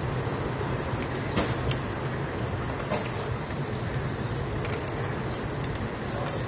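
A steady low mechanical hum with a few light, sharp clicks, from hands working a jumper wire into a connector on a van that won't start.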